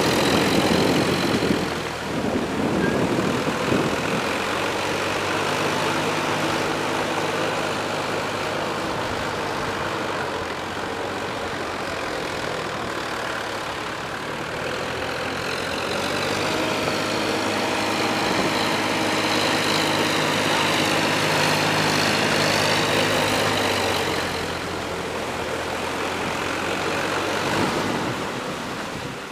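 Sonalika farm tractor's diesel engine running under load as it drags a rotary tiller through flooded paddy mud, its note wavering a little.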